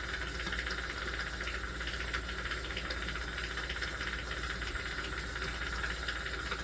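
Steady hiss of a jeweler's soldering torch flame burning without a break.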